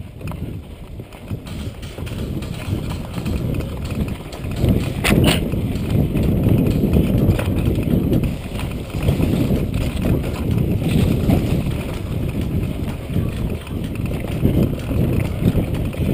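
Mountain bike rattling and thudding over a rough, bumpy dirt trail at speed, with a sharp clack about five seconds in.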